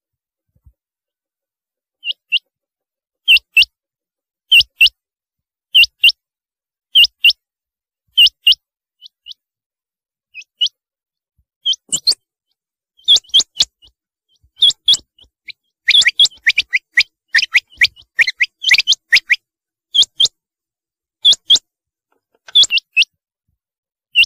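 Rain quail (black-breasted quail) calling: sharp, high, whistled notes, mostly in quick pairs, about one pair every second. After a couple of seconds of silence the calls begin; midway they come faster and overlap, then they settle back into spaced pairs.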